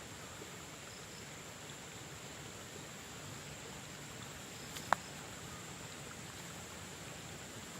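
Steady high-pitched insect trilling over a faint outdoor background, with one sharp click about five seconds in.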